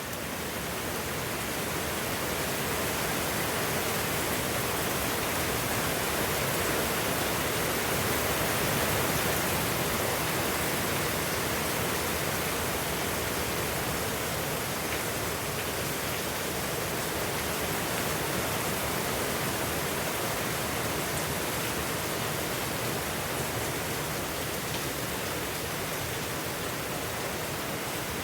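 Heavy typhoon rain falling steadily, a loud, even hiss without letup.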